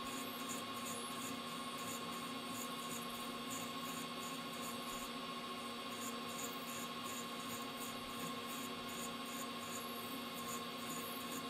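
Metal lathe running with its spindle turning, a steady hum and a high whine over a hiss, with faint high ticks repeating a few times a second, as a parting tool is fed into the spinning workpiece.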